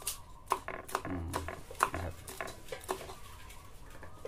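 Kitchen knife chopping green chilies on a thick wooden chopping board: sharp knocks of the blade on the wood, roughly two a second.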